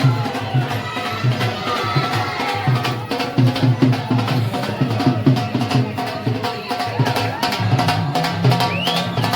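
Music with a steady, driving drum beat and other percussion.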